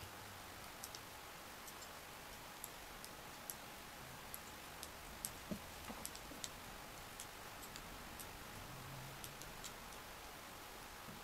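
Circular knitting needles clicking faintly and irregularly, roughly one or two light clicks a second, as stitches are worked one after another.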